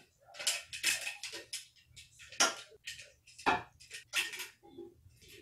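Kitchen tongs clicking and lightly knocking as cooked onions are lifted from a skillet and placed onto burger patties in an air fryer basket: a string of irregular light clicks, with two sharper knocks about two and a half and three and a half seconds in.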